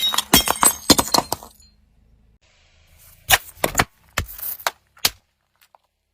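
Brittle objects cracking and snapping as they are crushed: a rapid run of sharp cracks during the first second and a half, then a second run of cracks from about three to five seconds in.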